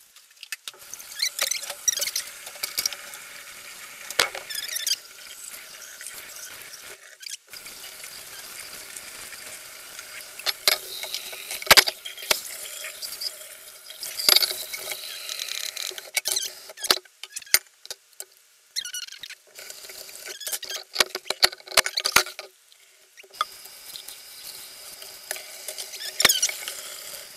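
Kitchen faucet water spraying and pouring into a stainless steel sink and mixing bowl as dishes are washed, with sharp knocks of metal bowls and utensils against the sink. The water breaks off briefly a few times.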